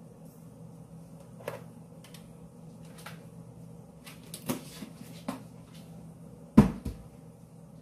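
Kitchen handling noises: a few light knocks and taps as a plastic sugar container and utensils are handled, then one loud thump near the end, over a steady low hum.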